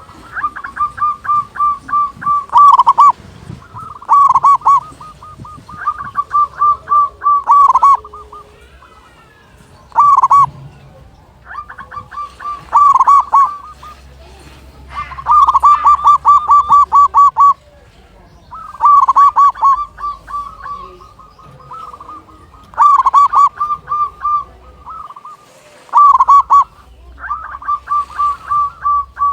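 Zebra dove (perkutut) cooing: phrase after phrase of rapid staccato coos around one pitch, each phrase a second or two long and ending in a few louder, drooping notes, repeated about a dozen times with short pauses between.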